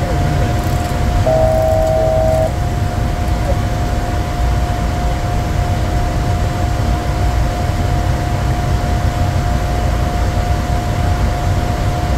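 Steady low rumble of airflow and engines inside the cockpit of a Bombardier Challenger 350 jet on approach, with a constant hum tone. About a second in, a brief electronic two-note tone sounds for about a second.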